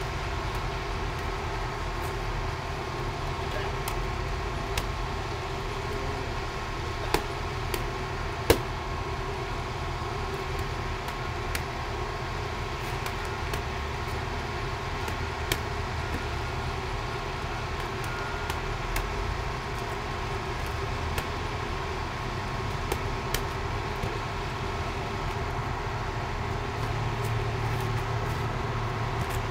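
Boxing gloves smacking leather focus mitts in scattered sharp hits, the loudest two close together about eight seconds in. Under them runs a steady low rumble of road traffic.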